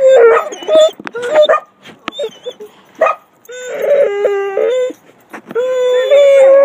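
Basset hound howling and whining in an excited greeting for its returning owner. It gives several short, wavering whines at the start, a longer howl about three and a half seconds in, and a long, steady howl beginning near the end.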